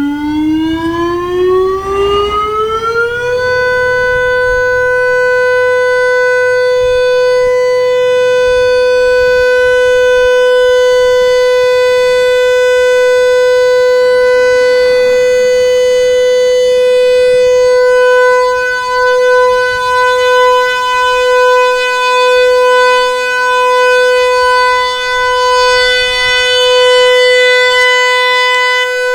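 Severnside industrial warning siren on its monthly test, rising in pitch for about three seconds and then holding one long steady tone. Its loudness wavers over the last ten seconds.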